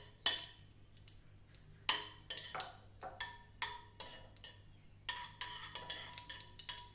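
Steel spoon knocking and scraping against a metal kadai while pushing lumps of ghee around the hot pan. It gives sharp clinks about twice a second that come faster and closer together in the last two seconds.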